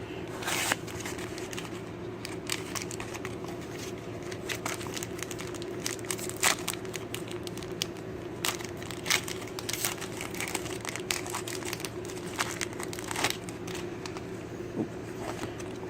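Foil Pokémon booster pack wrapper being crinkled and torn open, with scattered sharp crackles throughout.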